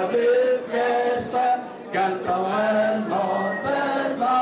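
A group of people singing together without accompaniment, holding each note for about half a second to a second.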